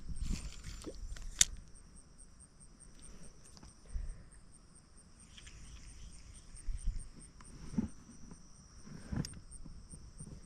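Insects chirping steadily: a high, even trill with a faster, regular pulsing ticking above it. Underneath, a low rumble and a couple of sharp clicks, one about a second and a half in and another near the end.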